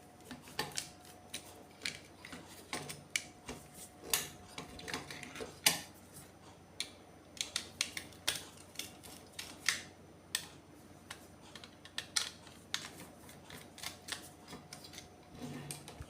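Irregular small clicks and taps of plastic and metal parts being handled while a pop-up floor outlet box is taken apart.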